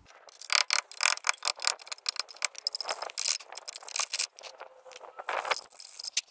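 Screwdriver scraping and picking at the rusty steel of a car's door pillar, a fast, irregular run of sharp clicks and scrapes as the rust is dug out.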